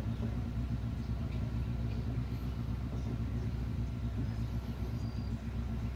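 Steady low mechanical hum with no music playing.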